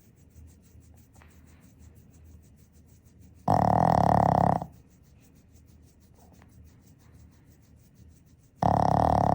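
Boston terrier snoring in its sleep: two loud, buzzy snores, each about a second long, one about three and a half seconds in and another near the end.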